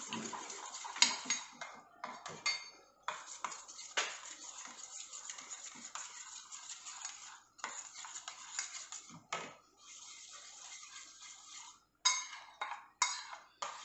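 Steel spoon beating eggs with chopped vegetables in a small stainless steel bowl, scraping and clinking against the metal. There is a louder clink about a second in and a few more near the end.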